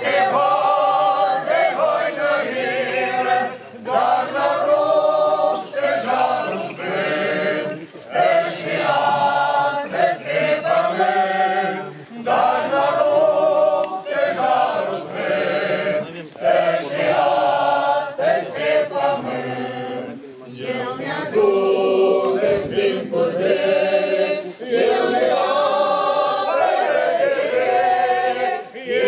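Church choir singing a cappella, held notes in long phrases with brief breaths between them.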